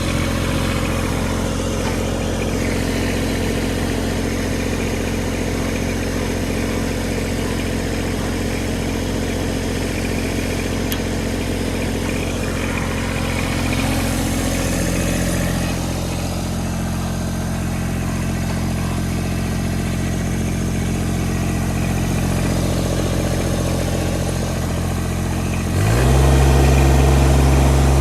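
Kubota BX24 compact tractor's three-cylinder diesel engine idling steadily. About two seconds before the end the throttle is opened, and the engine speed steps up and it runs louder.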